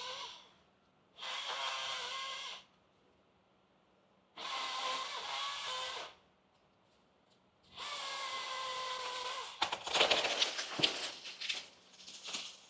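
Chainsaw revving in three short bursts of about a second and a half, each sagging slightly in pitch as the throttle is let off. About nine and a half seconds in, a run of sharp cracks and snaps takes over, the sound of a felled tree splitting and crashing down through branches.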